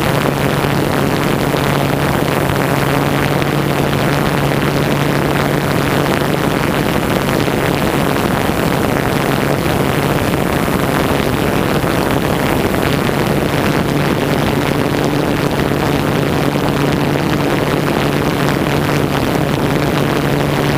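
Drone motors and propellers humming steadily in flight, with a low hum and its overtone over a rushing noise that does not change.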